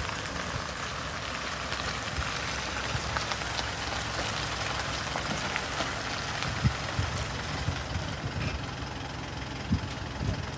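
Steady hiss of light rain falling on a wet gravel road, with a 4x4 turbo pickup truck's engine running low and steady underneath. A few faint knocks come through near the end.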